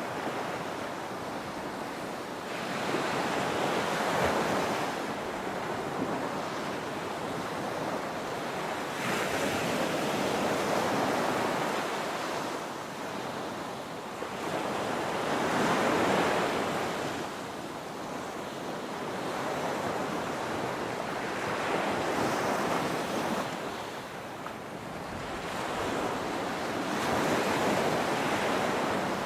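Ocean surf breaking on a beach, swelling and fading in a slow rhythm, with a wave washing in about every six seconds.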